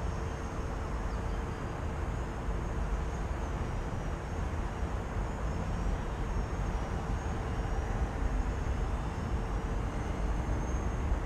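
Faint, high-pitched whine of a small RC plane's Emax 2206 brushless motor and 8-inch 3D prop, wavering in pitch with the throttle as the plane is held in a hover. A steady low rumble of wind on the microphone is louder than the whine.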